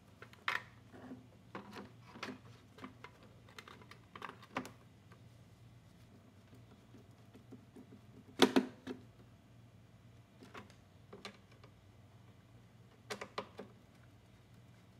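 Hands handling and wiping a mower's plastic engine shroud and working a screwdriver on it: scattered light clicks and taps, the loudest a sharp knock about eight and a half seconds in, with a few more clicks near the end.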